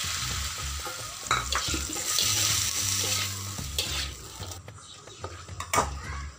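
Vegetables sizzling in a wok as a metal spatula stirs and scrapes them; the sizzle dies down after about four seconds, leaving a few sharp clicks of the spatula against the pan near the end.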